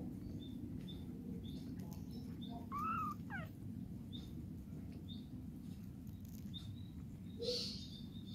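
Newborn kitten giving a single short, high squeak that rises and falls about three seconds in, with faint soft ticks and another brief sound near the end, while the mother cat licks its belly. A steady low hum sits underneath.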